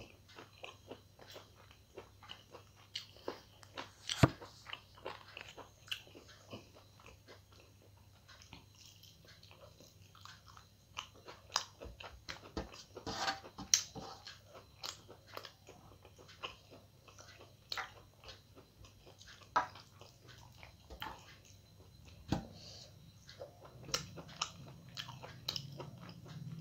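Close-up eating sounds: chewing and wet mouth smacks as rice and chicken curry are eaten by hand, with many short irregular clicks, and fingers mixing food on a metal plate.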